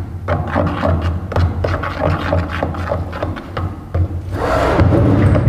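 Metal fork stirring and scraping powdered baby formula in a plastic bowl, a quick run of short scraping strokes, with a louder noisy stretch near the end.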